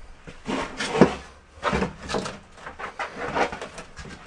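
A trowel scraping and stirring deck mud (sand-and-cement mortar) in a bucket, mixing it wetter, in uneven strokes about once a second.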